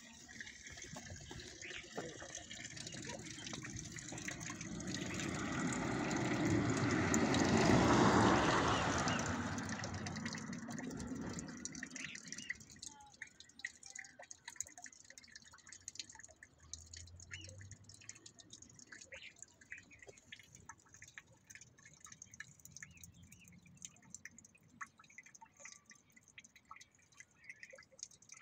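Water dripping from a hand-pump spout into a concrete trough while a donkey drinks, heard as many small ticks and drips. In the first dozen seconds a rush of noise swells to a peak and fades away.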